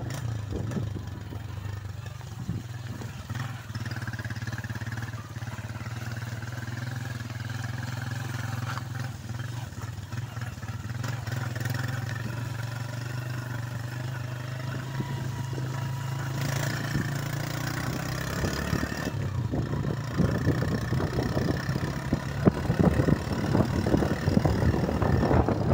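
Motorcycle engine running steadily at low speed while riding. About three-quarters of the way in, the sound turns rougher and grows louder, with wind buffeting the microphone.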